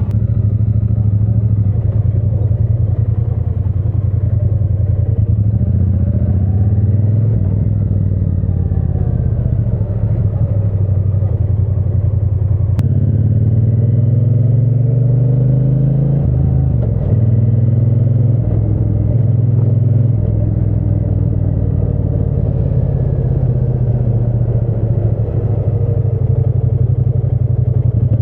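Triumph Bonneville T120's parallel-twin engine running under way, a steady low exhaust note. About halfway through the revs climb, with short breaks in the note like gear changes.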